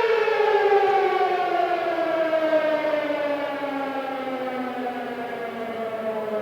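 Air raid siren winding down, its wail sliding steadily lower in pitch and slowly fading.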